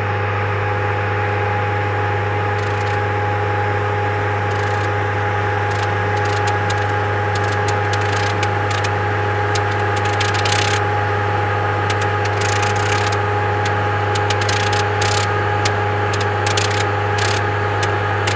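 Engine of a Blériot XI-type early monoplane running steadily on the ground at low power, with irregular sharp crackles over it.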